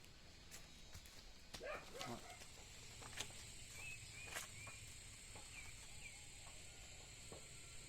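Quiet rural outdoor ambience: a short animal call about two seconds in, then a few faint, high, brief bird chirps, with scattered small clicks.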